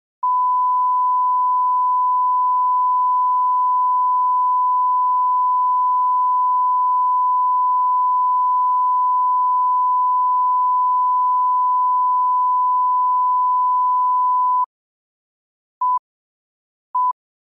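Steady line-up reference tone of a bars-and-tone slate, one pure tone held for about fourteen seconds and then cutting off. After about a second of silence come countdown-leader beeps, two short beeps about a second apart.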